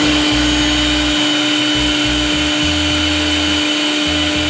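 CNC wood router's spindle running with a steady high whine as its bit carves a relief design into a wooden board, with a low rumble that comes and goes as the head moves.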